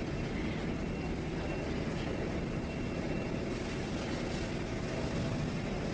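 Steady mechanical hum and noise of factory machinery, with no distinct strokes or clanks.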